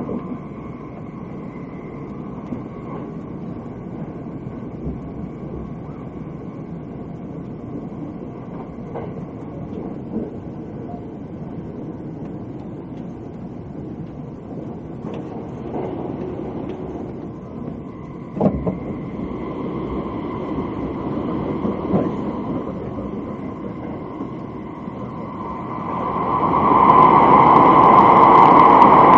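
Running noise heard inside the cabin of a Thunderbird limited express electric train at speed: a steady rumble with a faint hum and an occasional knock from the track. Near the end the noise swells much louder.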